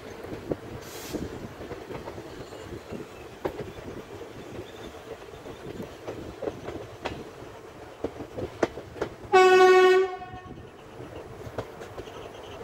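Passenger train running along the track: a steady rumble with wheels clicking over rail joints and points. About nine seconds in, the locomotive's horn gives one short blast, under a second long and the loudest sound here.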